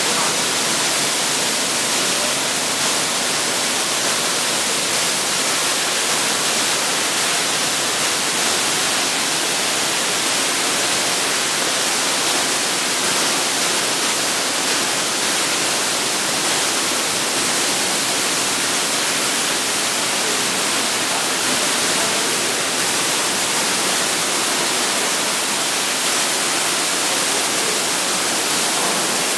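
Water spray jets of a Sino Star C7 brush car wash machine spraying a car, a steady, even hiss.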